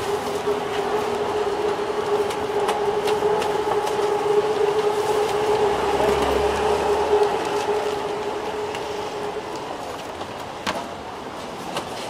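Motor scooter engine passing close by in the street, a steady hum that swells through the middle and fades away after about eight seconds. A few sharp knocks from the stall follow near the end.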